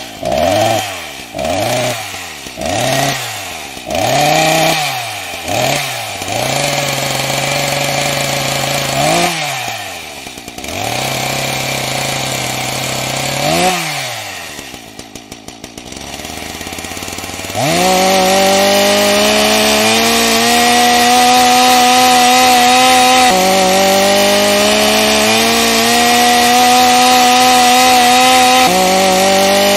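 Chainsaw engine revved in short blips, each rising and falling in pitch, with stretches of steady idle between. About two-thirds of the way in it goes to a sustained high-speed run whose pitch drops sharply twice and climbs back.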